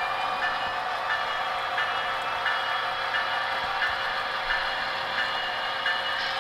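Diesel locomotive engine sound from the onboard Paragon3 sound decoder of a running N scale Broadway Limited SD70ACe, heard through its small speaker. The sound is a steady hum of several tones with a regular pulse about three times every two seconds.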